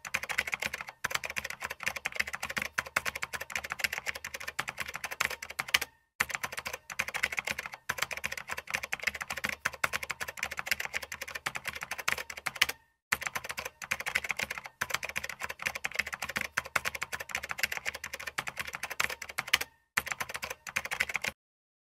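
Rapid keyboard typing clicks, a typing sound effect, running in long stretches with a few short pauses and stopping shortly before the end.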